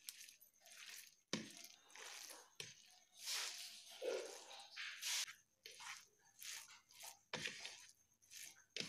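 A hand mixing cooked rice with garlic oil and chilli powder on a plate: irregular soft squishing and rubbing strokes of fingers pressing through the oily rice. There are a few dull knocks against the plate.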